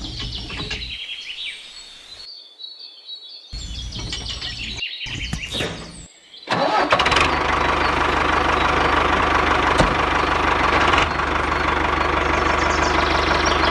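Short choppy snippets with bird chirps, then about halfway through an engine starts and runs steadily and loudly.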